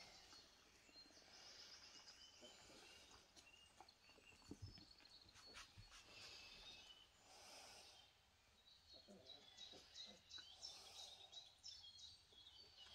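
Near silence: room tone with many faint, short, high chirps scattered throughout and a few soft low thumps.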